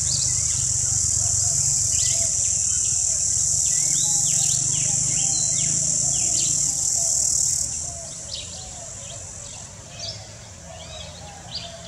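Loud, steady, high-pitched insect drone that cuts off suddenly about eight seconds in, with many short bird chirps over it throughout.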